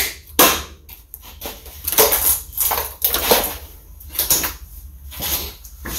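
Irregular knocks, clunks and rustles of equipment being handled: a fusion splicer and its strap being picked up and put away.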